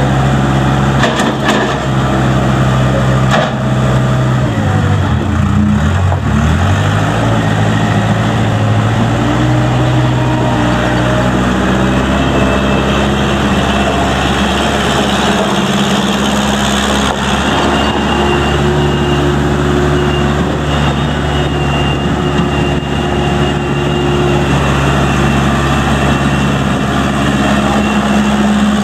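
The Case 580K loader backhoe's 63 hp Case diesel engine running. Its pitch drops sharply about five seconds in, as if pulled down under load, climbs back over the next few seconds, and steps up again about halfway through.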